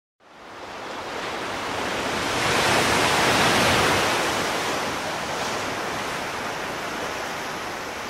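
Sea surf: a wash of wave noise that fades in, swells to a peak a few seconds in, then eases back down.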